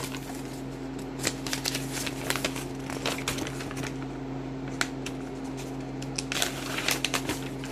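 Sheets of paper handled and unfolded by hand, a run of crisp rustles and small clicks that come in short flurries, over a steady low hum.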